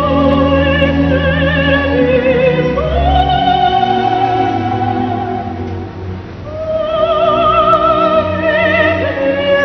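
Operatic singing: a voice holding long notes with wide vibrato over classical accompaniment. It fades briefly about six seconds in, then swells again.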